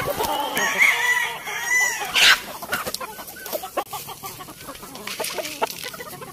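A flock of free-range chickens clucking and squawking as they crowd round hand-scattered feed, with short pitched calls in the first two seconds and a sharp noisy burst a little after two seconds.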